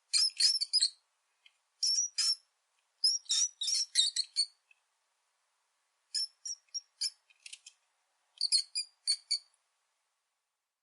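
Rat squeaking: quick, high-pitched squeaks in about five short clusters with brief silences between them.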